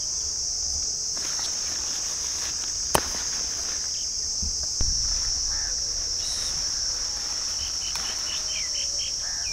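Steady high-pitched drone of insects in the field vegetation, unbroken throughout. There is a sharp click about three seconds in and a few short chirps near the end.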